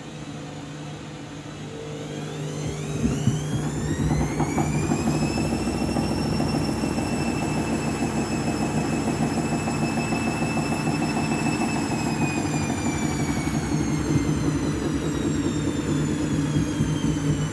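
Washing machine drum spinning with an extremely unbalanced load, rattling and knocking fast throughout. The motor whine rises about two seconds in, holds at a high steady pitch, then falls gradually in the last few seconds as the drum slows.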